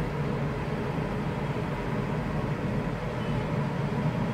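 Steady low mechanical drone of machinery running aboard a boat, an even hum with no breaks.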